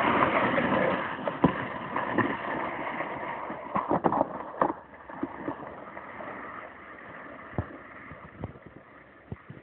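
A sled hissing and scraping over icy snow, fading as it slides away downhill, with a few scattered knocks.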